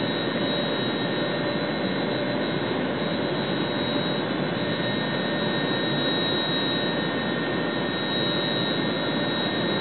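Steady rushing noise of an air compressor running as it pumps air into a bottle rocket on its launch pad during a pressure test toward 100 PSI, holding an even level with no bursts.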